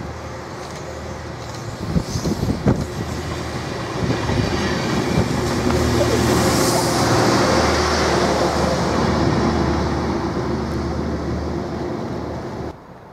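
Network Rail Windhoff multi-purpose vehicle running as a snow-and-ice treatment train, passing through the station: a steady diesel engine drone and wheel-on-rail noise that grow as it comes near, are loudest as it goes by, then ease off. A couple of sharp knocks come about two seconds in, and the sound cuts off abruptly near the end.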